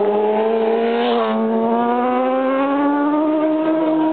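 Supersport racing motorcycle engine accelerating hard, its pitch climbing steadily with a brief dip about a second in.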